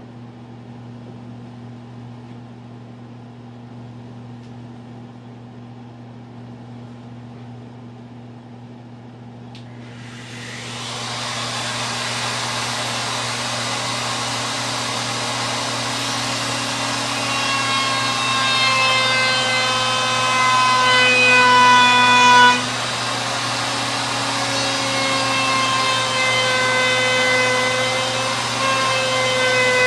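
A low steady hum, then about a third of the way in a handheld router starts and runs loud. A little past the middle its whine begins to dip and waver in pitch as the template routing bit cuts along the edges of the drawer fronts, trimming them flush to a straight line.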